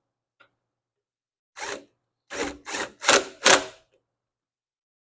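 Bolts on a lawn mower carburetor mount being tightened with a hand or power tool: five short bursts of mechanical clicking and whirring in quick succession, starting about a second and a half in.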